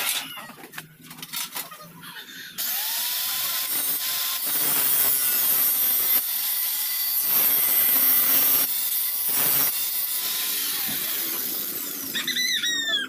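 A handheld power tool, most likely an angle grinder, starts abruptly a few seconds in and runs for about ten seconds, grinding on the running board's sheet metal, with its level rising and falling as it bears on the work. Bird chirps are heard near the end.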